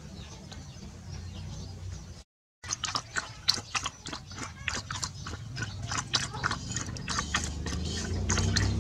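Dog lapping water from an aluminium pot: quick, wet slurps in a steady rhythm of about three or four laps a second, starting about two and a half seconds in.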